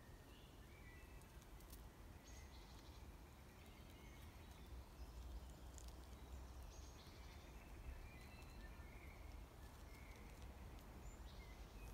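Near-silent outdoor ambience: faint bird chirps now and then over a low, steady rumble.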